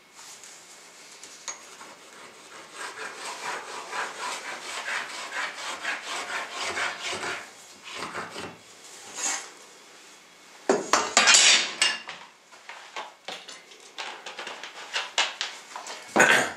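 Pencil scratching along a metal T-square on an oak hardwood plank as the cut lines are drawn. About eleven seconds in comes a loud metallic clatter, the long metal square being picked up off the floor, and there is another sharp knock near the end.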